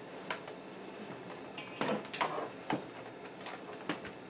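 A clothes iron being picked up and handled on an ironing board while pressing fabric: a handful of short, light knocks and clunks, the strongest about two seconds in.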